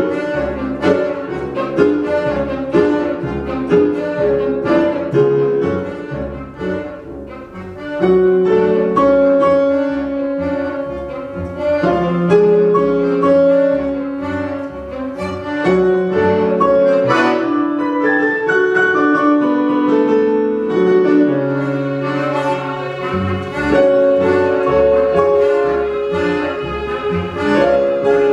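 Live tango ensemble playing: violin, harmonica, piano accordion, Yamaha digital piano and double bass. The bass marks a steady pulsing beat for the first several seconds; the music dips briefly about seven seconds in, then returns with long held melody lines over the accompaniment.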